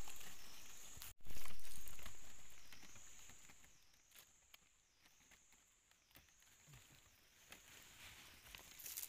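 A continuous high insect trill that dips in pitch about once a second, over rustling and scraping of hands in dry dirt, gravel and twigs while a trap is set. A sudden break about a second in is followed by a louder rush of noise that fades away.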